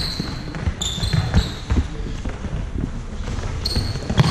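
Futsal being played in a sports hall: sneakers squeaking sharply on the floor a few times, mixed with the thuds of the ball being kicked and dribbled and players' feet on the court.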